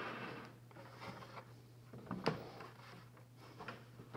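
Veneered wooden panel being worked down into a snug-fitting dry-assembled cabinet frame: faint wood-on-wood rubbing, a sharp wooden knock about two seconds in, and a few lighter taps.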